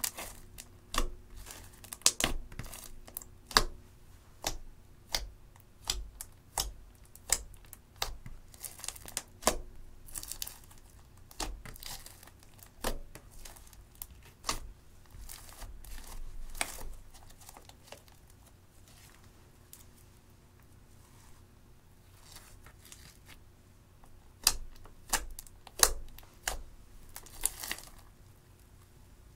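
Thick slime with crushed eyeshadow mixed in, being kneaded and pressed by hand, giving sharp sticky pops and crackles about one or two a second. They go quieter in the middle, then a few loud pops come near the end.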